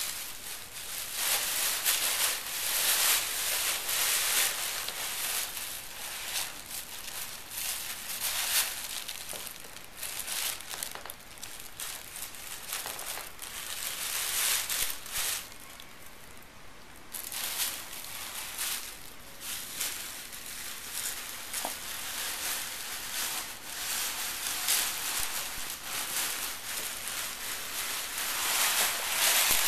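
Thin plastic shopping bag crinkling and rustling in irregular bursts as a cat burrows and noses around inside it, with a short lull about halfway through.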